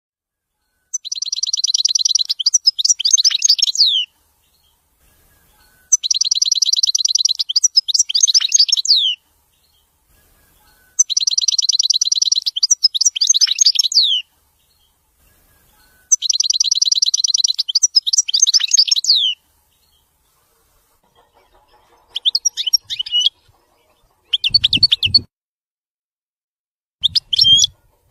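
European goldfinch singing. The same phrase comes four times about five seconds apart, each a fast, even trill followed by a run of quick, varied twittering notes, and then shorter chirping bursts near the end.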